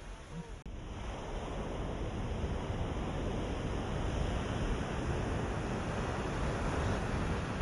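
Ocean waves washing on a shore, a steady surf that swells up after a brief dropout about half a second in.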